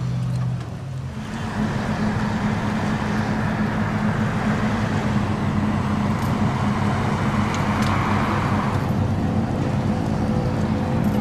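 A steady low engine hum under an even noisy wash; a few higher hum tones join near the end.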